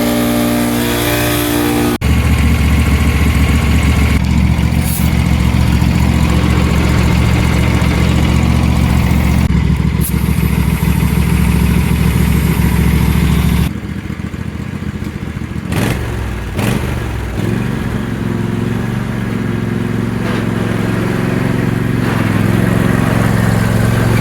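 Small petrol engine running steadily just after a choked cold start, having sat unused for about two weeks. Its note shifts about two seconds in and again around the middle.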